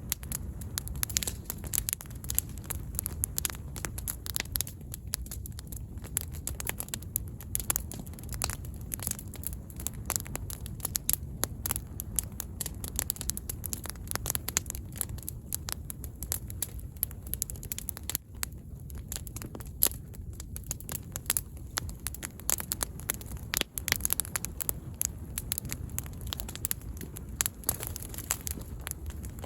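Wood campfire crackling with irregular sharp pops, over a low steady rumble.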